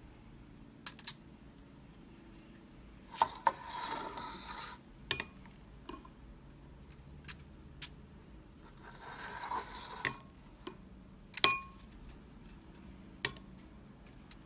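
A spoon clinking on and scraping a glass bowl of melted chocolate as the chocolate is spooned into paper liners in a metal muffin tin: scattered sharp, ringing clinks, the loudest near the end, and two scraping stretches of about a second each.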